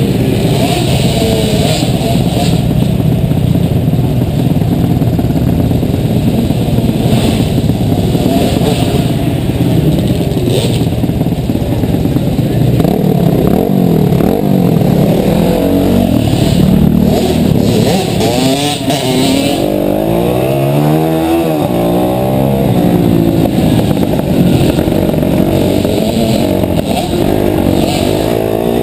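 Mini motocross bike engine heard from on board while riding laps of a dirt track, its revs climbing and dropping with the throttle through the turns and jumps, with several quick rises and falls past the middle.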